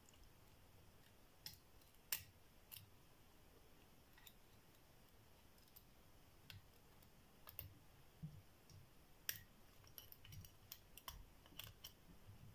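Faint, sharp metallic clicks of a lock pick and tension wrench working inside a cross lock, spaced irregularly and coming closer together in the last few seconds.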